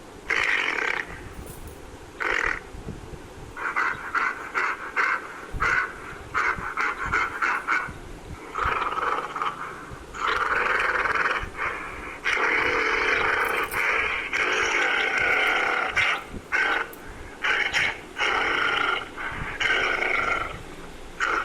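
Gorilla vocalising: a run of short, harsh grunts, then longer roars from about ten seconds in.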